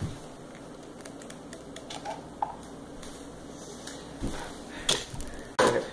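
Glass jar of sweet relish being handled and twisted at its stuck cap: a few light, scattered clicks and taps, with one sharper click about five seconds in.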